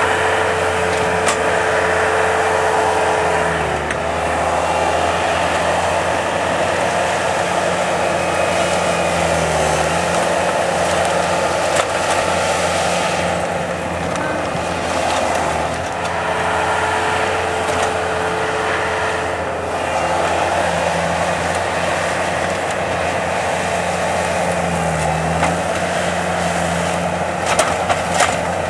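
Skid loader engine running steadily under working throttle, its pitch dipping and rising several times, with a few sharp clicks near the end.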